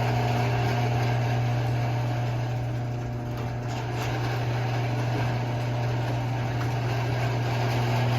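Garage door opener running, its electric motor giving a loud, steady low hum as it drives the door.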